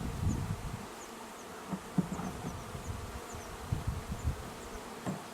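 A mass of honeybees buzzing steadily around an open hive during installation. A low rumble of handling sounds in the first second and a couple of brief knocks lie under the hum.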